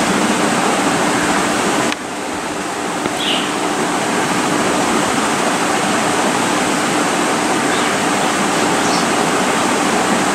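Steady loud hiss of background noise, like rushing air, with a faint low hum under it. It drops abruptly about two seconds in, then builds back up, and a few faint short chirps sound over it.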